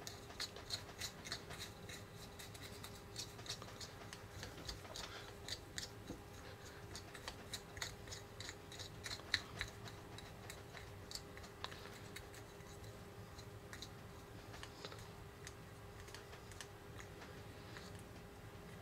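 Fingertips kneading a small lump of powder-and-water toy dough in a small plastic cup: faint, irregular scratches and clicks of fingers and nails against the plastic, busiest in the first half and thinning out later, over a faint steady hum.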